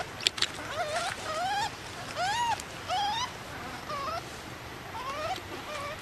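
Infant long-tailed macaque crying: a run of short, high whimpering calls, each rising then falling in pitch, about one or two a second. Two sharp clicks sound about a third of a second in.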